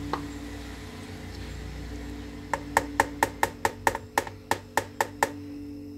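A quick, even run of sharp taps, about five a second, starting about two and a half seconds in and stopping a little after five seconds, over soft steady background music.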